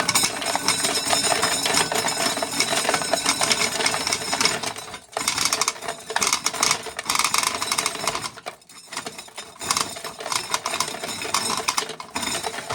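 Corn sheller running with ear corn fed through it: a loud, dense, rapid mechanical rattle of kernels being stripped off the cobs, with brief breaks about five seconds in and again near nine seconds.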